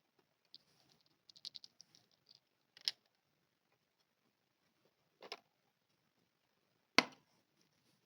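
Small plastic pieces being handled: a run of light crackling ticks, then sharp clicks and taps, the loudest a single sharp tap about seven seconds in.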